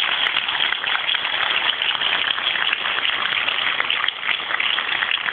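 Audience applauding: a dense, steady mass of clapping.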